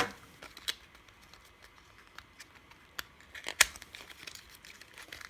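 Small plastic clicks and handling noises as a GoPro Hero 4 replacement battery is pushed into a slot of its charging dock, with the sharpest click about three and a half seconds in.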